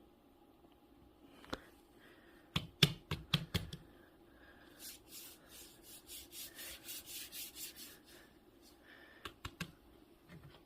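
Handling noises: a cluster of sharp clicks and taps, then a run of rhythmic rubbing or brushing strokes, about three a second, then a few more clicks.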